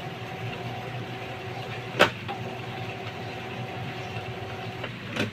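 Epson L3150 inkjet printer's internal motor whirring steadily as it runs its slow power-on initialization. There is a sharp click about two seconds in, after which the whir pauses briefly. The whir cuts out shortly before a second click near the end.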